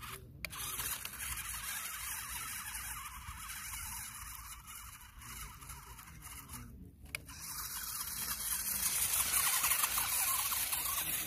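Toy-sized model tractor driving over loose river pebbles: a dense crackle and clatter of stones shifting under its knobbly tyres. The sound drops out briefly twice and is loudest near the end.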